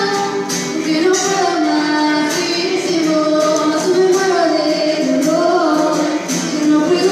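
A young woman singing a slow melody into a microphone, with a guitar strummed in a steady rhythm under her voice.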